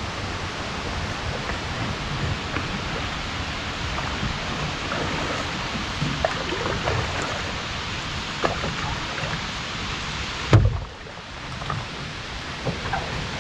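Canoe paddling on a calm river: a steady rushing noise with small water splashes and drips, and one loud knock about ten and a half seconds in.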